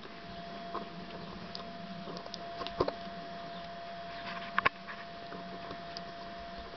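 Kittens playing on carpet and pawing at a socked foot: scattered light taps and scratches with a few sharp clicks, over a steady faint hum.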